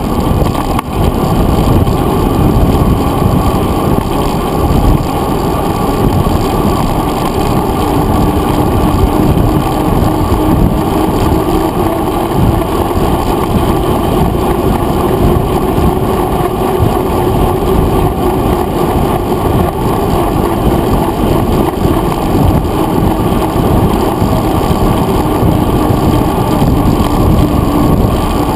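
Mountain bike rolling along a paved trail, picked up by a handlebar-mounted GoPro Hero 2: a loud, steady, muffled rumble of wind and tyre and frame vibration, with a faint steady hum in the second half.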